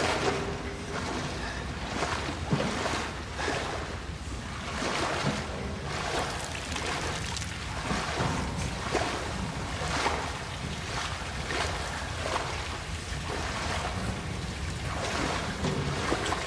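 Footsteps wading through shallow water on a flooded floor, splashing and sloshing about once a second, over a steady low rumble.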